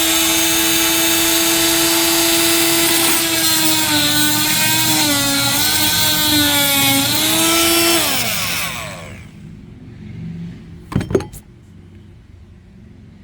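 Oscillating multi-tool cutting a wooden deck board: a loud, steady high whine whose pitch sags and wavers from about three seconds in as the blade bites into the wood, then winds down and stops about eight seconds in. Two sharp knocks follow near the end.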